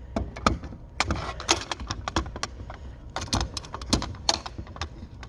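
Irregular metal clicks and rattles from handling a Bostitch P51-10B pneumatic stapling plier as its parts are fitted back together.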